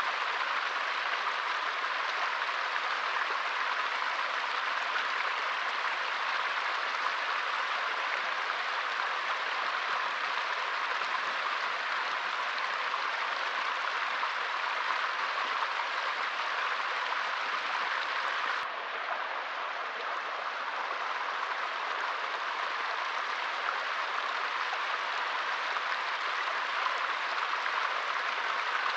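Small forest stream flowing steadily, an even rushing of water over stones, with a faint click and a slight drop in level about two-thirds of the way in.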